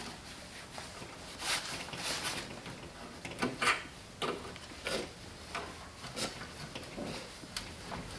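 Needle-nose pliers twisting and prying a knockout slug out of a fire alarm panel's sheet-metal enclosure: about ten short, irregularly spaced scrapes and rasps of metal on metal.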